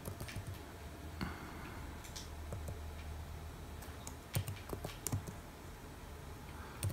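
Faint keystrokes on a computer keyboard, coming in short, scattered runs of clicks.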